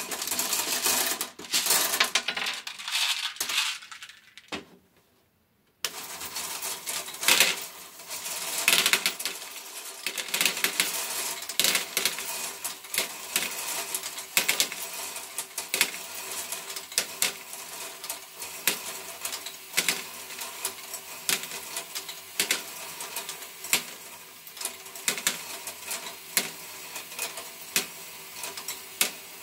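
LEGO Technic great ball contraption sweeper module running: small plastic balls clatter and click as the geared sweeper arms push them along, over a faint steady motor hum. Balls are tipped in by hand at the start. There is a brief near-silent gap about five seconds in.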